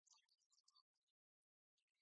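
Near silence: faint, scattered short ticks and clicks, with a stretch of dead silence in the middle.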